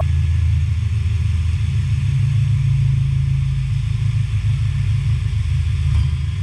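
Cordless drill boring into a wooden workpiece, its motor running steadily under load with a low, even hum.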